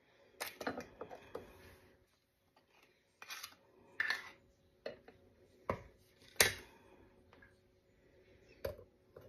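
A black kitchen ladle and a wooden spoon knocking and scraping against a glass mixing bowl and a glass mason jar as thick strawberry jam is spooned out. The sound is a series of separate clinks and short scrapes, the loudest about two-thirds of the way through.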